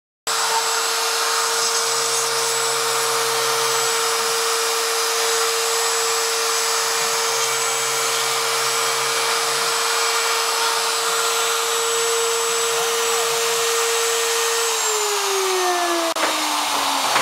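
Porter-Cable 690 router on a CNC machine running at a steady high-pitched whine while its quarter-inch up-spiral bit cuts a wooden test piece. Near the end the motor is switched off and its pitch falls steadily as it spins down.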